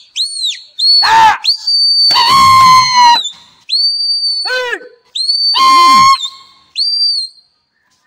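Loud human whistling to a flock of pigeons in flight: a few quick arching notes, then longer held whistles, some falling in pitch and some with a rough, voiced edge, stopping shortly before the end.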